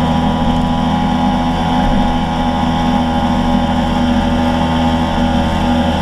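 Scooter engine running at a steady pitch while the scooter is ridden along the road, with a constant rushing noise from the road and the air.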